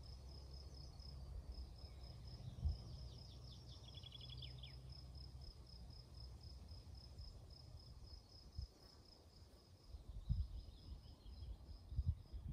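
Insect chirping in a steady series of high pulses, about four a second, with a short descending trill about three to four seconds in. A low rumble sits underneath, and a few low thumps come near the end.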